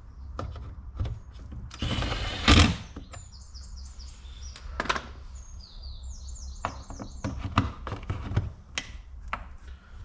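Clicks and knocks of car door trim and parts being handled, with a louder rustle ending in a heavy thunk about two and a half seconds in. Two quick runs of high, falling chirps sound in between.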